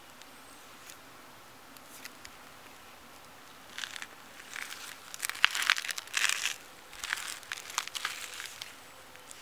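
A burst of crinkly, crackling rustle starting about four seconds in and lasting some five seconds, loudest in the middle.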